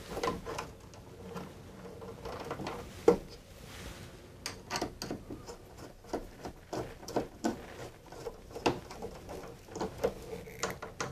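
Screwdriver tightening the screw of an Ilsco tap connector on a circuit breaker, with irregular small clicks and scrapes of the tool and wires.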